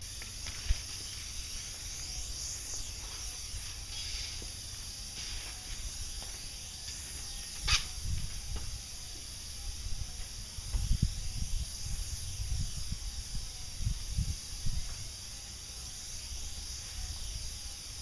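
Airless paint spray gun on an extension pole, fed by a Graco 695 sprayer and fitted with a 515 tip, spraying paint onto a garage door with a steady high hiss. The hiss starts right at the beginning. Irregular low thumps come through from about halfway.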